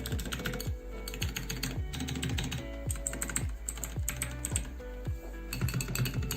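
Fast typing on a Vortexseries VX8 mechanical keyboard with clicky blue switches, a dense run of key clicks, over background music with a steady beat.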